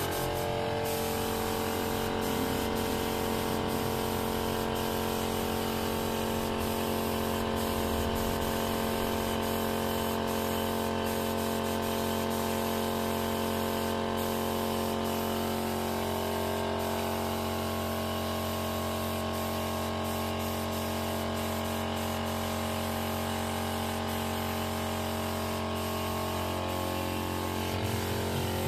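Spray gun hissing steadily while spraying epoxy primer, over a steady machine hum.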